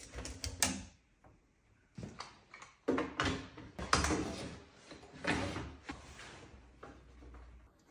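Aluminium sliding table and fence of a saw bench being slid back and forth by hand: a run of sliding rasps with knocks and clicks of metal parts. A few sharp clicks come in the first second.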